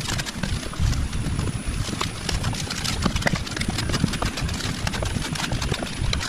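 Digging in hard red clay: irregular knocks and scrapes of a hand tool biting into the soil, over a low uneven rumble.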